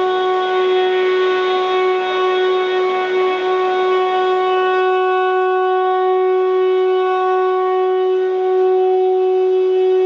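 Live band holding a single sustained note as a steady, reedy drone, its higher overtones thinning out about halfway through.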